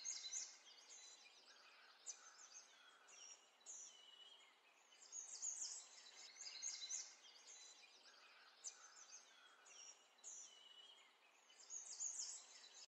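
Faint birdsong: bouts of short, high chirps and twitters, coming every second or two over quiet room hiss.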